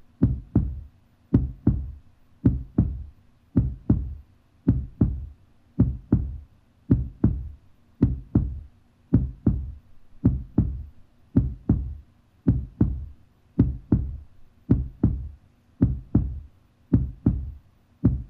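Heartbeat sound: a steady double thump, lub-dub, repeating about once a second.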